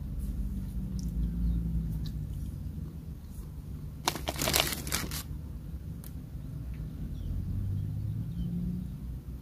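Plastic food bag crinkling as it is handled, a burst of about a second starting about four seconds in, over a steady low rumble.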